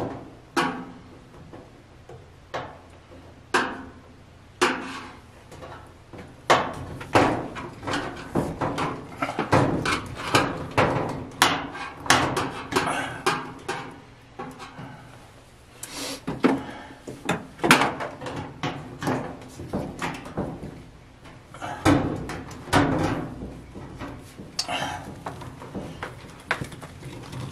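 Hand-tool work on an electric dryer's power terminal block: a screwdriver, terminal screws and wire ring terminals clicking, scraping and knocking irregularly against the sheet-metal back panel as the power cord's wires are fastened.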